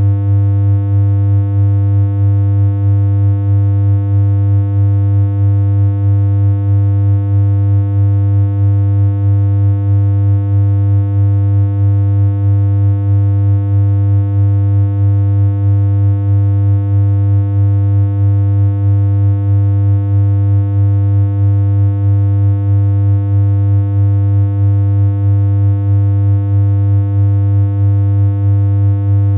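Continuous synthesized electronic hum: one low, buzzy tone with a stack of overtones, held without change, with a slight regular pulse in loudness about twice a second.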